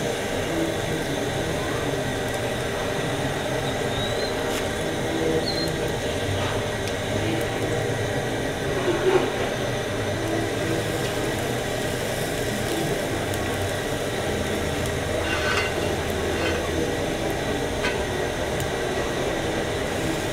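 A table knife scraping and tapping now and then against an aluminium pan as it spreads pancake batter, over a steady hum and hiss.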